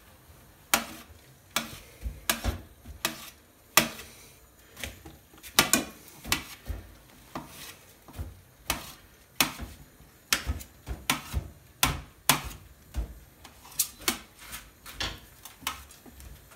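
Kitchen knife chopping grilled chicken into small pieces on a stainless steel plate, the blade striking the metal in sharp, irregular knocks, roughly one or two a second.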